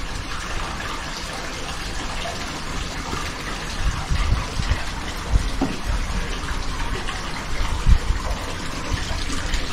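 Water running steadily with a splashing hiss, with a few short low bumps now and then.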